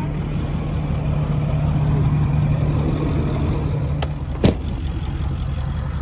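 Ford F-350 plow truck's engine idling with a steady low hum, and one sharp click about four and a half seconds in.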